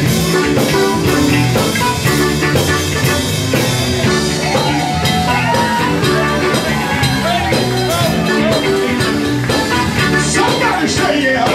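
Live soul band playing a steady groove, with a singer's voice coming in over it about halfway through.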